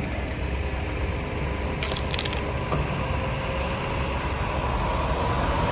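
Excavator's engine running steadily as it works in a pile of storm-wrecked building debris, with a short clatter of debris about two seconds in.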